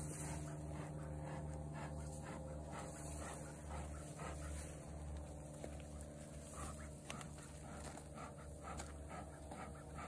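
Bee smoker bellows puffing again and again, short breathy pushes of air, over a steady low hum.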